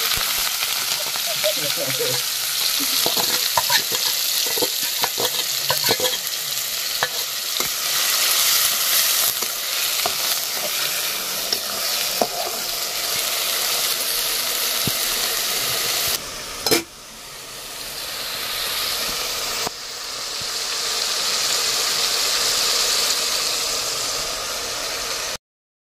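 Sliced onions sizzling in hot oil in a metal kadai, with a metal spatula scraping and clinking against the pan as they are stirred. The clinking stops about two-thirds of the way through while the sizzling goes on, and the sound cuts off suddenly just before the end.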